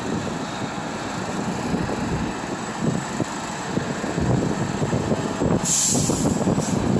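Heavy truck running close by with a steady low rumble; about five and a half seconds in, a sudden burst of hissing, followed by a quick series of short hisses, about three a second.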